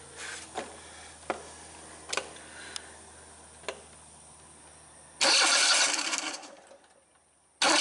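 Starter cranking a Kohler Command twin-cylinder engine in a short burst about five seconds in that winds down, then cranking again right at the end, after a few faint clicks. The engine is being spun over with an in-line spark tester on one plug lead to check for ignition spark.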